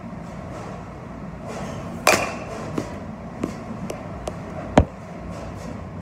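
Batting-cage impacts: a sharp, ringing crack about two seconds in and a heavier thud near five seconds, with a few light knocks between, over a steady hum of the hall's machinery.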